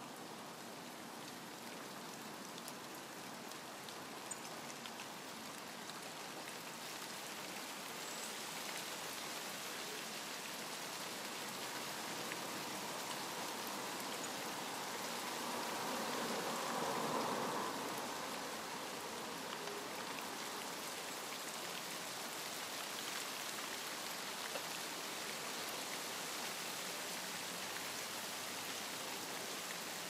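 Steady rain falling, an even hiss, with a louder rush for a couple of seconds about halfway through.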